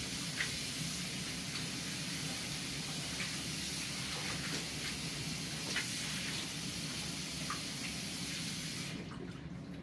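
Kitchen tap running steadily into a sink while things are washed under it, with a few light knocks. The water is shut off near the end.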